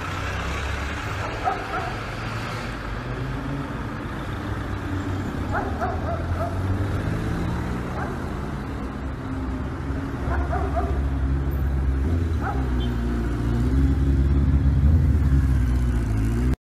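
A dog barking in short yaps several times over a steady low rumble that grows louder near the end.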